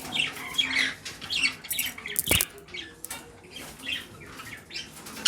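Pet parrots chirping and squawking in short, scattered calls, with one sharp knock a little over two seconds in.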